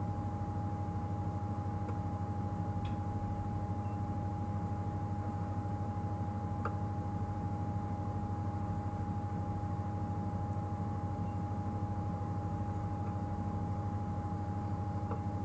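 Steady low hum of an idling game-drive vehicle engine, with a constant thin whine over it. A few faint ticks come through now and then.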